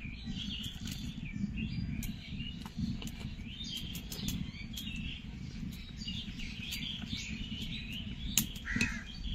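Birds chirping and calling, with a louder call near the end, over a steady low rumble.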